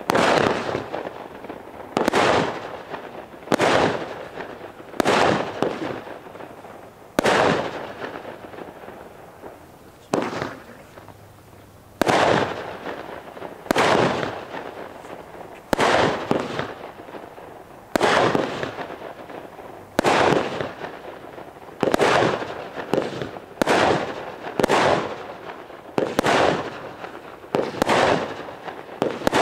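Consumer fireworks from Vulcan's Soul Crushers assortment firing: a string of aerial shots bursting with sharp bangs about every one and a half to two seconds, each fading out over a second or so. The bangs pause for a few seconds about a third of the way in, with only one smaller bang in the lull.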